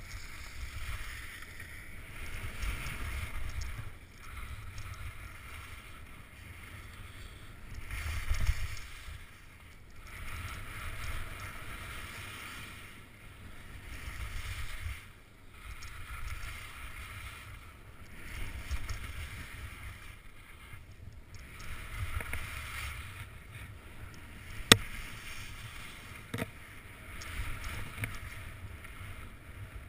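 Skis carving turns on groomed snow, a scraping swish that swells with each turn every two to three seconds, over wind rumble on a helmet camera's microphone. A sharp click near the end, then a smaller one.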